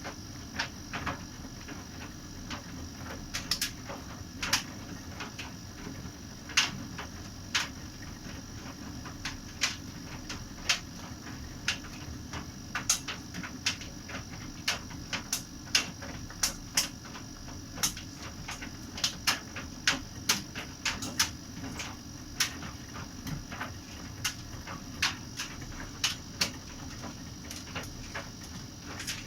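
Bosch laundry machine running: a steady low hum from the motor and drum, with irregular sharp clicks and ticks as the drum turns, sometimes several a second.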